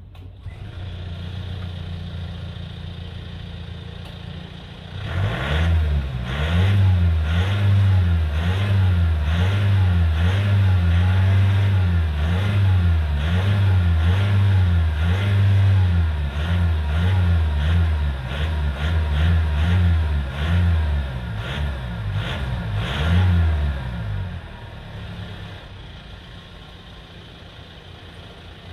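Volvo XC90 B5's 2.0-litre four-cylinder engine heard at the exhaust: idling, then revved over and over in quick blips for about twenty seconds, then settling back to a quieter idle.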